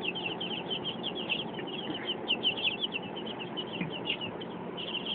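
A brood of two-week-old light Brahma chicks peeping, many short high cheeps a second overlapping in a steady chorus.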